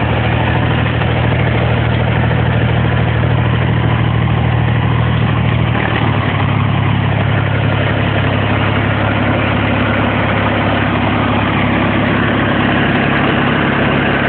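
Engine running steadily, with a low hum that shifts slightly in pitch about six seconds in, typical of the vehicle towing a wheel hay rake through cut hay.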